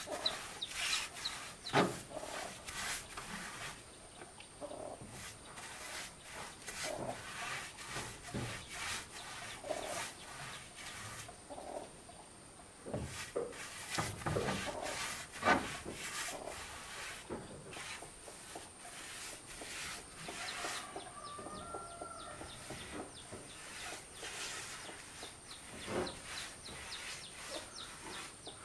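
Paintbrush rubbing anti-mold paint onto planed wooden wall boards in repeated short, irregular strokes, with chickens clucking now and then in the background.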